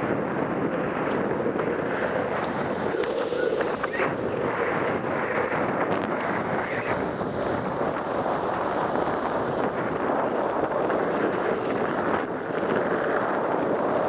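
Wind rushing over the microphone at downhill longboarding speed, mixed with the steady hiss of longboard wheels rolling on wet asphalt.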